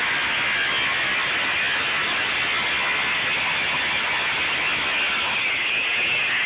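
Angle grinder with an abrasive cut-off wheel cutting through a steel tank wall, running steadily under load.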